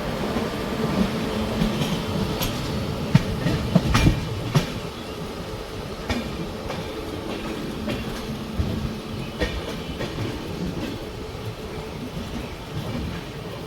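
Passenger train wheels clattering over rail joints, with several sharp clanks about three to four and a half seconds in, then running on quieter.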